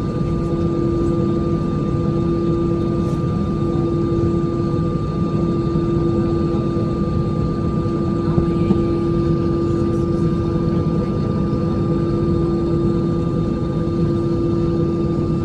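Aircraft engines running steadily: a loud, constant drone with a steady low hum and a thinner high whine that neither rise nor fall.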